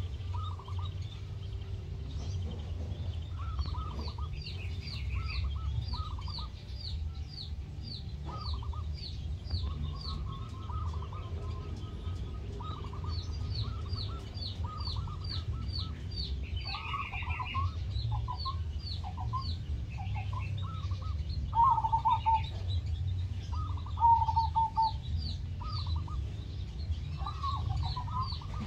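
Birds calling in a zebra dove (perkutut) aviary: short clusters of cooing or clucking notes at a middle pitch, over a high chirp repeated about twice a second, with a steady low rumble beneath. Two of the calls, about 22 and 24 seconds in, are louder than the rest.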